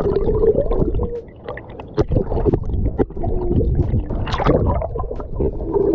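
Pool water sloshing and gurgling around a waterproof camera held at the surface, dipping in and out of the water, with irregular splashy clicks. It is briefly quieter between about one and two seconds in.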